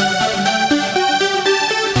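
Electronic music: a synth melody of short notes stepping up and down in pitch.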